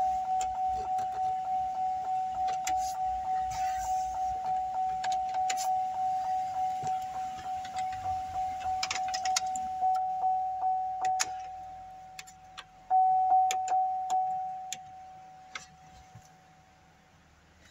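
Chevrolet Avalanche dashboard warning chime ringing as one steady repeated tone, about three chimes a second. It stops about twelve seconds in, starts again louder a second later, then fades away. Light clicks and key jingles sound over it.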